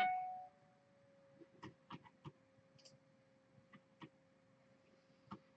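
Faint, scattered clicks of a computer mouse and keyboard in use, about a dozen spread over a few seconds, over a faint steady tone. A short ringing tone fades out in the first half second.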